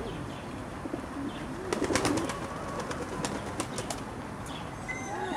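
Pigeons cooing, with a run of sharp clicks near the middle.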